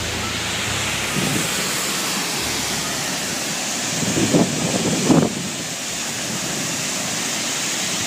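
Steady rushing roar of a large waterfall, with wind noise on the microphone and two brief louder bursts about four and five seconds in.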